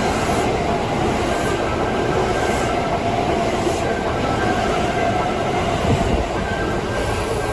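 Kintetsu electric train running past the platform: a steady, loud rumble of wheels on rails, with a faint high whine running through it.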